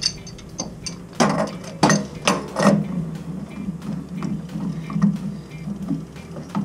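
Steel pipe wrench being set and pulled on a fitting of a Weil-McLain CGi 4 boiler's relief valve piping, loosening it for a new relief valve: a series of sharp metallic clicks and knocks, the loudest four between about one and three seconds in, over a low steady hum.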